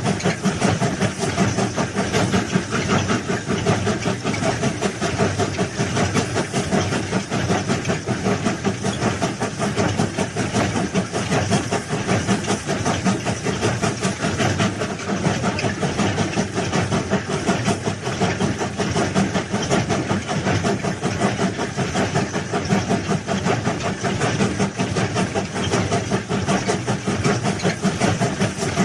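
Heavy track-laying machinery engine running steadily, with a fast, even chatter.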